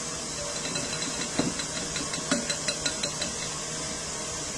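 Electric mixer motor running steadily, beating margarine and sugar. Over it come light taps and scrapes of flour being poured from a ceramic bowl into a plastic sieve, scattered through the middle of the stretch.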